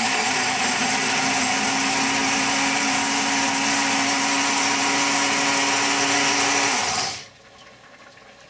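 Small personal blender running steadily at full speed, puréeing hot chicken stock with tortillas, garlic and chipotle, with a constant motor hum. The motor cuts off about seven seconds in.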